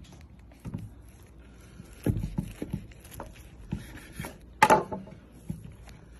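A long knife cutting down through a stacked double burger on a wooden cutting board, with soft crunches and knocks of the blade and bun, the loudest a sharp one about four and a half seconds in.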